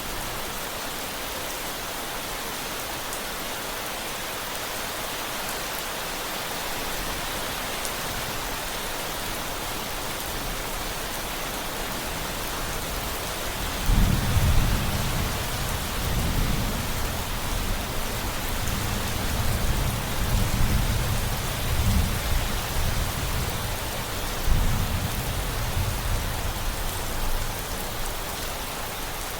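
Steady rain, with a long roll of thunder starting abruptly about halfway through and rumbling on for some fifteen seconds before it fades back into the rain.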